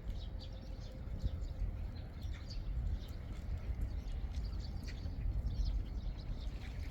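Footsteps of a person walking outdoors, with wind rumbling on the microphone and a few faint bird chirps.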